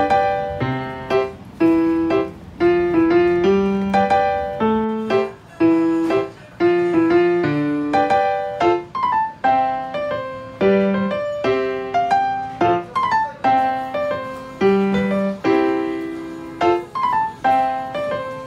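Background music: solo piano playing a light melody, with notes struck a few times a second, each ringing and fading.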